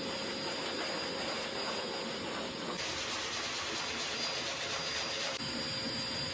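Pet blow dryer running steadily, its hose nozzle blowing warm air: a constant rushing hiss with a faint high whine. The tone shifts slightly about three seconds in and back about two seconds later.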